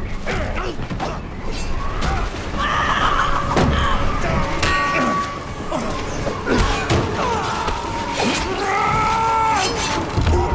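Movie fight sound mix of a close hand-to-hand brawl: a run of hits and thuds with grunts and yells from the fighters, and a brief ringing tone about four and a half seconds in.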